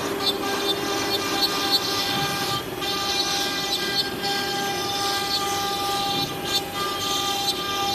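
CNC router spindle running with a steady high whine while the machine works a panel, with a hissing cutting noise that swells and fades every second or so.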